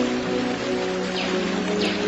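Soft ambient relaxation music with long held, slowly shifting notes over a steady hiss of nature sound. Two brief falling chirps come a little past halfway.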